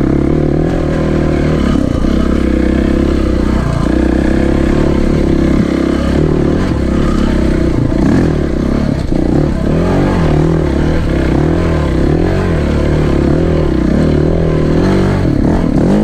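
Single-cylinder enduro dirt bike engine running under way on a rough trail, heard onboard. Its pitch rises and falls again and again in the second half as the throttle is opened and closed.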